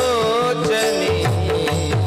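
Devotional kirtan music: an ornamented melody line that glides in pitch near the start, over steady held tones, with low hand-drum strokes.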